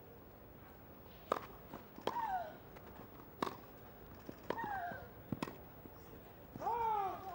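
Tennis rally: the ball struck by rackets about half a dozen times, a sharp pop with each shot. A player lets out a short grunt that falls in pitch after several of the strokes, the last and loudest near the end.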